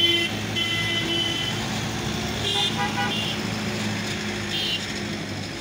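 Truck engines running with a steady low hum as the trucks drive past, with several short, high-pitched horn toots.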